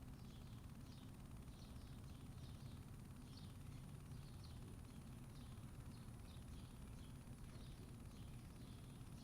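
Faint outdoor backyard ambience: short high chirps repeating about twice a second over a low steady rumble, with a thin, steady, very high whine.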